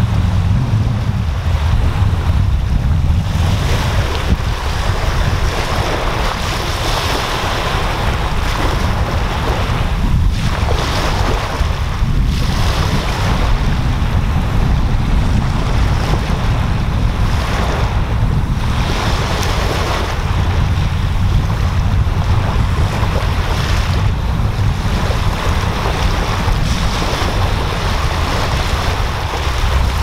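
Small waves breaking and washing up a sandy beach, the hiss of the surf swelling and easing every few seconds, over a steady low rumble of wind on the microphone.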